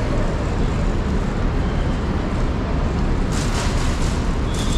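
Steady low rumble of road traffic around an airport bus area, with a brief hiss about three seconds in and a thin high tone starting near the end.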